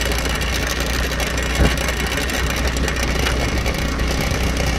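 Two-wheeler's engine running steadily while riding, mixed with wind and tyre noise on a wet dirt road, with a single thump about one and a half seconds in.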